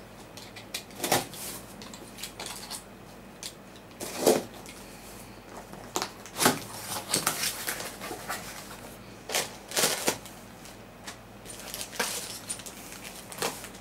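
A cardboard shipping box being opened by hand: irregular short scrapes, rustles and knocks of cardboard flaps and packaging.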